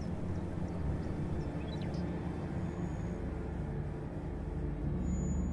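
Low, steady outdoor ambience rumble with a few faint bird chirps about two seconds in.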